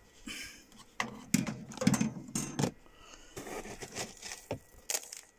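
Cat litter scooped with a slotted litter scoop and scattered over a plastic Blu-ray case in a litter tray: scraping and rattling with sharp clicks and pattering granules, heaviest from about a second in to nearly three seconds, then lighter ticks.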